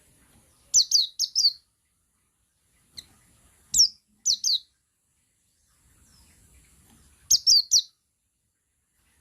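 Male pleci buxtoni (a white-eye) singing its 'ngalas' call: short bursts of quick, high, downward-sliding chirps, in groups of one to four notes separated by pauses of a second or two.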